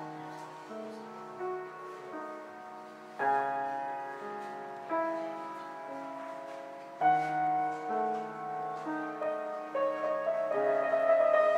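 Grand piano playing slow, sustained chords. Louder chords are struck about three, five, seven and ten and a half seconds in.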